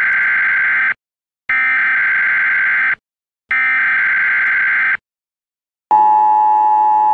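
Emergency-broadcast style alert tones: three long, identical buzzing beeps with short gaps between them, then a lower steady alert tone that starts near the end. They open a mock 'this is not a test' announcement.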